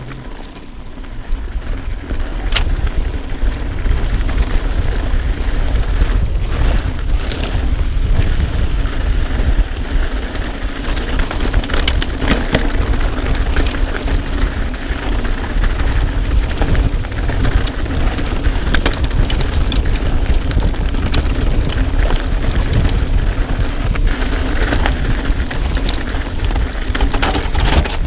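Wind buffeting an action camera's microphone while a mountain bike rolls fast down a rough dirt trail: a steady low rumble with scattered clicks and knocks from the tyres and bike over rocks.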